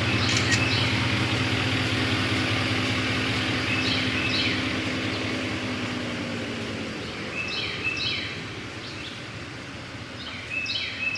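A vehicle's engine running with a steady low hum that fades away over about the first seven seconds. A bird chirps in short calls several times over it.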